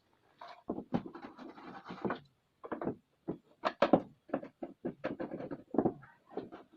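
Irregular clicks, knocks and scrapes of hands and tools working on the plastic casing of a CRT television while it is being opened up.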